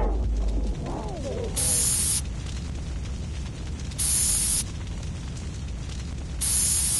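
Aerosol spray can of repellent hissing in three short squirts, evenly spaced about two and a half seconds apart, over a steady low rumble.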